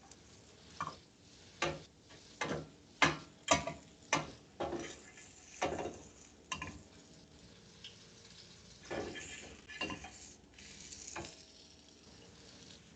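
Cooking utensils clinking and knocking against pots and pans, about a dozen sharp knocks in the first six seconds, then a few softer scrapes, over a faint sizzle of chicken frying.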